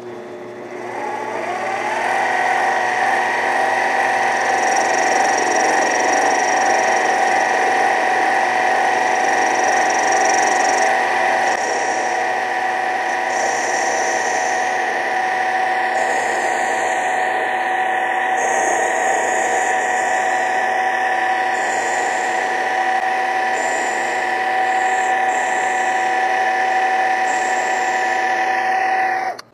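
Mini lathe motor winding up over the first couple of seconds, then running with a steady whine while the tool faces a small aluminum part, with cutting noise from the chips coming off; it cuts off suddenly near the end.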